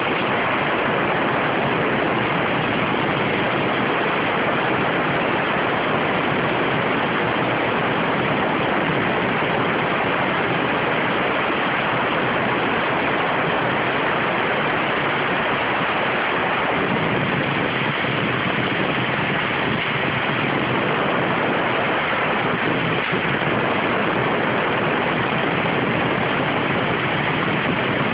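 CNC waterjet cutting 0.6 mm stainless steel sheet: the high-pressure water jet gives a steady, loud hiss that does not change.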